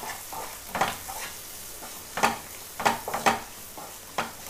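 Spatula stirring and scraping sautéed onions and ground spices in a nonstick kadai over a faint frying sizzle, in about six separate strokes.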